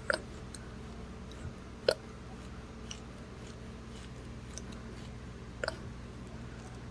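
A sleeping woman's mouse-like snoring: short, sharp squeaks on her breaths, three clear ones and a fainter one a second or more apart, over a steady low hum.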